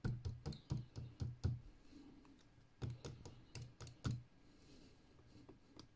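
Light, irregular clicks and taps of small glued styrene plastic card strips being handled against a cutting mat, about a dozen in quick succession, stopping about four seconds in.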